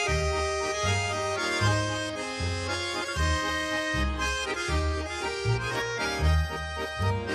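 Swiss Ländler music played by a trio: a chromatic button accordion and a Schwyzerörgeli carry the melody and chords over double bass notes about twice a second.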